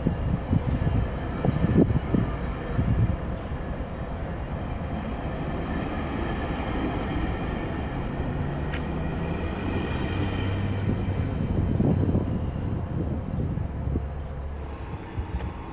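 GO Transit bilevel passenger coaches rolling past along a station platform: a steady rumble of wheels on rail, with high wheel squeal and a few thumps in the first few seconds. Near the end another train is heard approaching.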